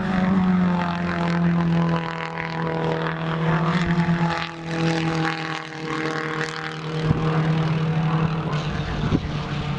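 Holden Gemini race cars' engines running hard at racing speed: a steady droning engine note from the pack that fades briefly about halfway through, then comes back with a rougher, noisier edge as the cars draw nearer.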